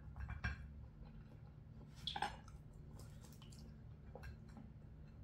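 A knife and fork cutting toasted bread on a plate: a few soft clicks and scrapes, loudest about two seconds in, over a low steady room hum.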